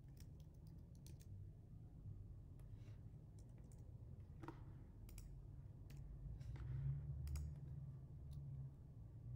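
Computer keyboard keystrokes: faint, sparse clicks at irregular intervals over a low steady hum.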